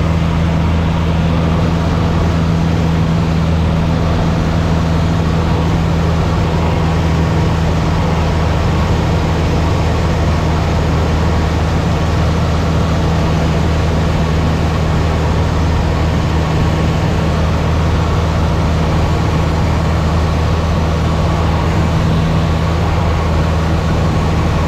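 Light single-engine airplane's piston engine and propeller running steadily in flight: a loud, even low drone with an unchanging pitch, heard from the cockpit.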